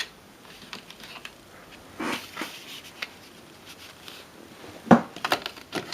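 Hands handling RAM sticks and their plastic packaging: short rustles and several sharp clicks, the loudest about five seconds in.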